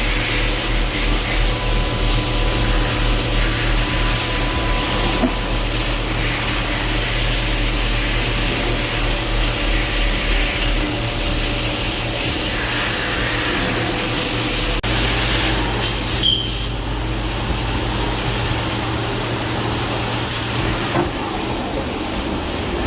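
CNC machine running while machining plastic parts: a steady hiss over a low hum. The hum changes about halfway through and drops away near the end.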